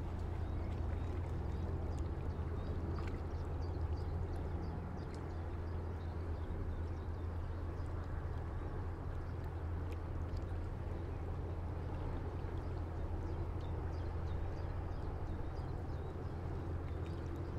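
River water lapping and gurgling against a stone breakwater, over the steady low drone of a passing ship's engine, with faint scattered small ticks.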